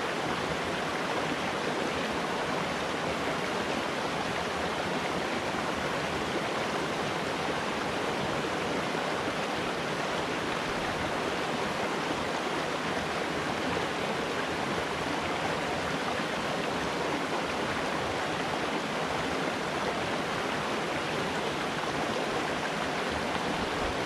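A small woodland stream rushing steadily over rocks and a small riffle.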